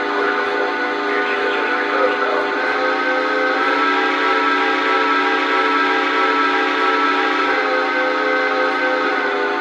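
Lionel Vision Line ATSF 3000 model steam locomotive's sound system playing one long, steady chime steam whistle blast through its speaker, with a hiss under it.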